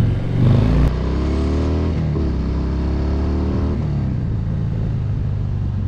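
Harley-Davidson V-twin motorcycle with an aftermarket exhaust accelerating, its pitch climbing twice with a gear change between, then running steadily after about four seconds.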